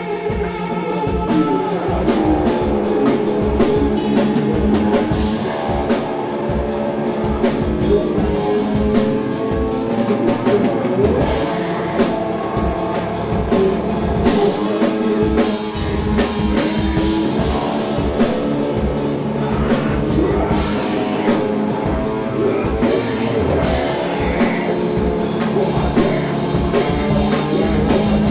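Heavy rock band playing live and loud: distorted guitar and a drum kit pounding out rapid hits.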